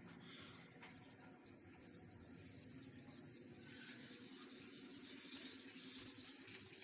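Water running in a steady hiss that grows louder about halfway through, over a faint low hum.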